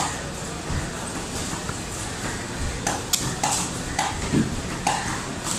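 Heavy cleaver chopping through fish on a wooden chopping block: one chop at the start, then about five sharp chops in quick succession in the second half, each with a short ringing knock.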